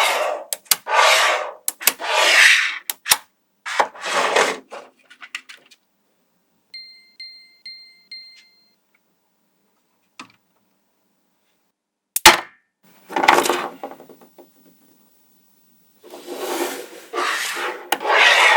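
Magnetic balls being handled, with bursts of scraping rattle as they are dragged and shifted and a sharp click about twelve seconds in. A quick run of four short high pings sounds about seven seconds in.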